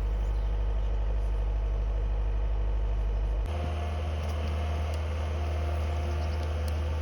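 Engine of the vehicle skidding logs, running steadily; its tone changes abruptly about three and a half seconds in.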